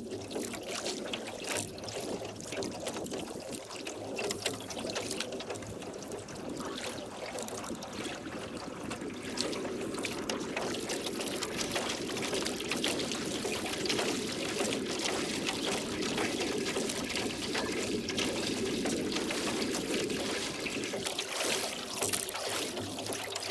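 Water splashing and trickling as oars dip and pull through a lake while a boat is rowed, running on with no pause.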